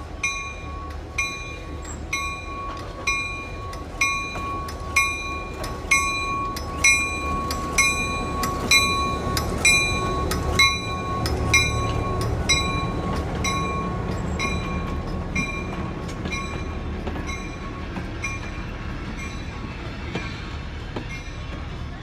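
Illinois Central GP11 diesel locomotive rolling past with its bell ringing about once a second; the rings are loudest as the locomotive passes, about ten seconds in, then fade as it moves away. The low running of its diesel engine sits under the bell and swells as it goes by.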